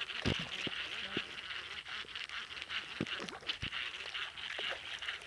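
Steady high-pitched chorus of insects from the swamp, with scattered clicks and knocks from handling the baitcasting rod and reel.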